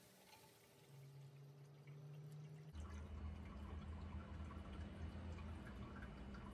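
Faint water dripping and trickling off a wet tile saw and a freshly cut wet tile after the saw has shut off. A low rumble comes in a little under three seconds in.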